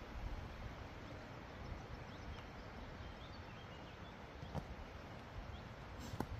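Quiet woodland ambience: a steady hiss with a low wind rumble on the microphone, a few faint short bird chirps about two to three seconds in, and a couple of light knocks near the end.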